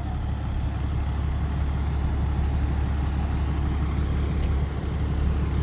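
Fire engine's diesel engine idling steadily with a constant low hum.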